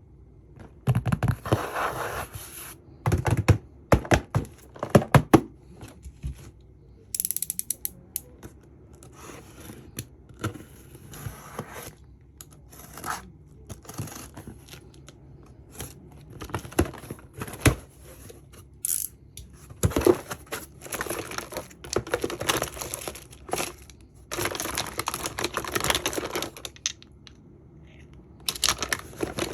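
Packaging being handled and opened: irregular plastic and paper crinkling and tearing, with many short clicks and taps.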